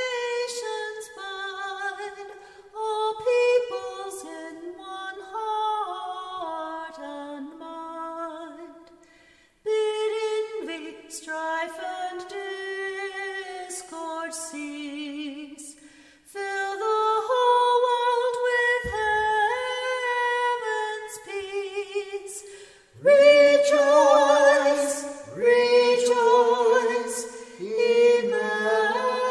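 Unaccompanied singing in high voices: a melody sung in phrases with brief breaks. About three-quarters of the way through, a lower harmony part joins and the singing gets louder.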